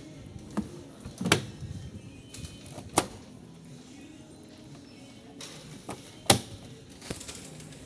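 A handful of sharp knocks and clicks, the loudest a little over a second in and again near the end, over background music.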